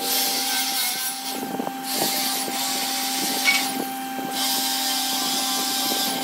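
Corded electric drill running at a steady speed, its bit boring into a wooden slab. A steady motor whine runs under a high cutting hiss that drops out briefly twice, with a few small knocks.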